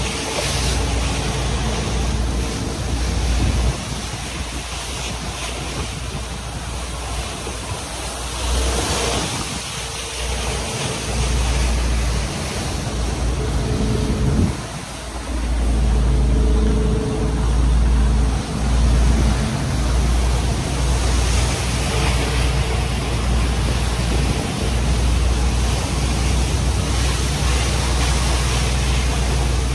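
Wind buffeting the microphone in gusts over the hiss and slap of waves and spray as a motor yacht runs through a 3-5 foot chop, with the steady drone of its twin Crusader 502 big-block V8 inboards underneath. The wind rumble eases for several seconds from about four seconds in and drops briefly about halfway through.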